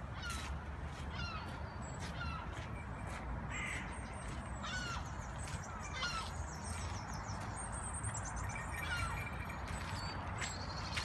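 Harsh bird calls, short and falling in pitch, repeated about once a second over a steady low city rumble.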